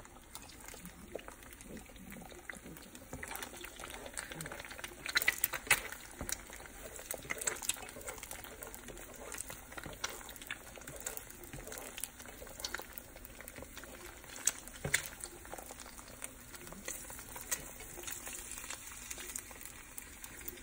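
Eggs frying in hot oil in a nonstick pan, with faint, irregular crackling and pops, and a few louder clicks from a plastic spatula against the pan about five seconds in and again near fifteen seconds.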